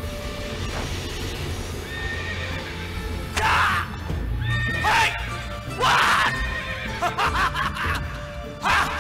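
Dramatic battle music with horse neighs breaking in over it about four times, each a short, loud, falling cry.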